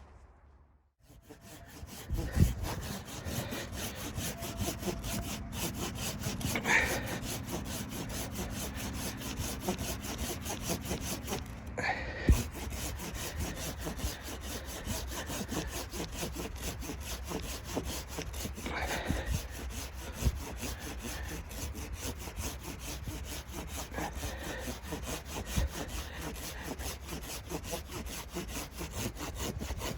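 A saw cutting through wood with steady back-and-forth strokes, starting about a second in.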